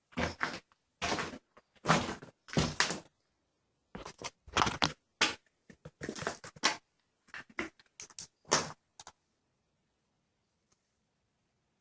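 An irregular series of thumps and knocks, one or two a second, that stops about nine seconds in, after which it is nearly quiet.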